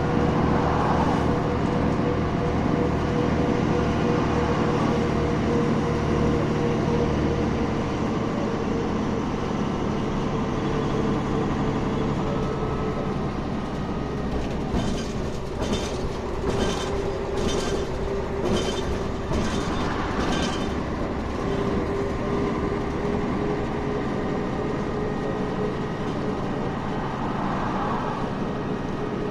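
Ride noise inside a city bus under way: steady engine and road rumble with a constant whine. A run of short rattling clacks comes about halfway through.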